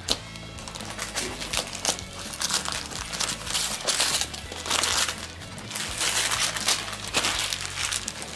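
Gift wrapping paper being ripped and crumpled off a small cardboard box, in a run of tearing rips.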